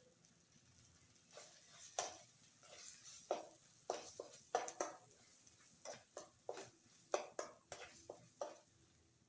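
A metal spoon scrapes and clinks against a metal pan while stirring thick masala paste as it fries in oil until the oil separates. The strokes are irregular, starting about a second and a half in and stopping near the end.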